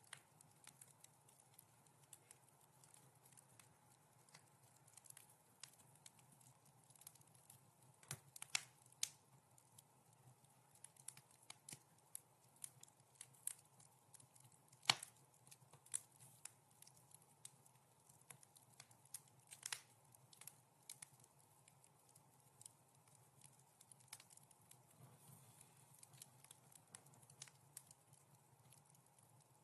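Wood fire in a fireplace crackling softly: scattered, irregular small pops and snaps, with one sharper pop about halfway through, over a faint steady hiss.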